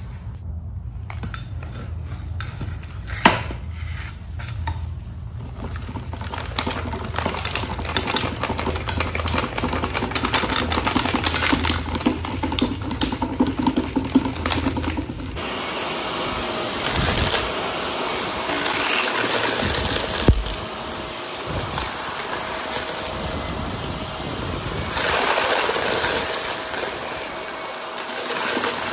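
Vacuum cleaner running over a dirt-strewn rug, crackling and rattling as grit, fluff and small bits are sucked up, with a couple of sharp clicks. About halfway the low hum drops away and the sound turns to a hissier suction with a faint steady whine.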